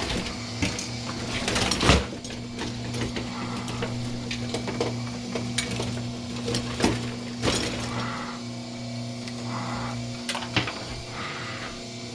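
Electric wire-stripping machine's motor running with a steady hum while copper wire feeds through it, with scattered clicks and knocks, the sharpest about two seconds in. The hum drops away about ten and a half seconds in.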